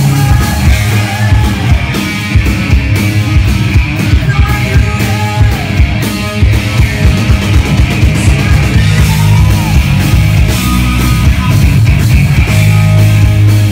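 Live rock band playing loud and steady: a drum kit keeping the beat under electric guitar and bass.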